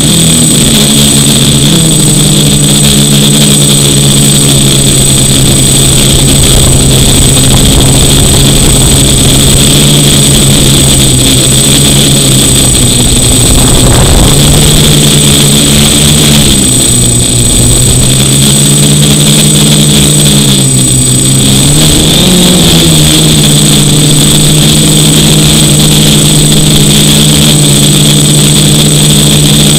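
DJI F450 quadcopter's brushless motors and propellers buzzing loudly in flight, picked up by a camera bolted to the frame. The buzz shifts in pitch a few times as the throttle changes, with a steady high whine above it.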